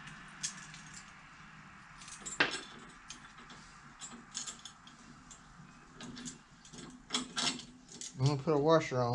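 Small metal hardware clinking and clicking as bolts, washers and nylock nuts are handled and fitted on a spreader frame, with one sharp click about two and a half seconds in. Near the end comes a short voice-like call with a wavering pitch.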